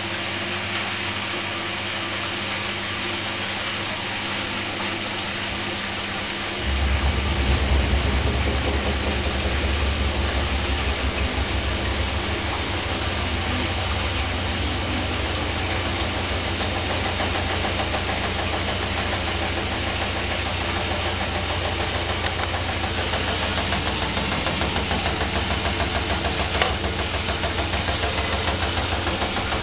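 Candy GrandO Plus washing machine spinning on its wool programme: a steady hum, then about a quarter of the way in the drum picks up speed with a louder low rumble and runs on with a fast, even rhythm. A single sharp click comes near the end.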